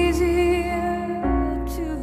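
Slow, tender music for a dance routine: a melody note held with vibrato over a sustained low bass, moving to a new note just over a second in.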